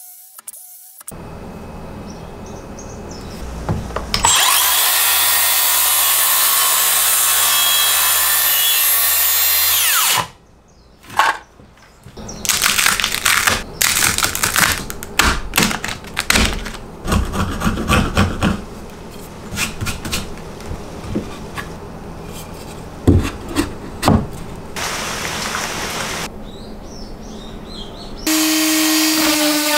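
Makita cordless circular saw cutting kerfs in a softwood timber for about six seconds, then winding down. After a short pause come many sharp, irregular cracks and taps as the thin slivers of wood left between the kerfs are snapped off and cleared by hand. Near the end a steady hum starts.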